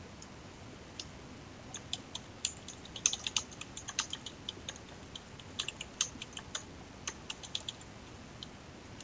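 Typing on a computer keyboard: a click at the start, another about a second in, then several seconds of quick, irregular key taps.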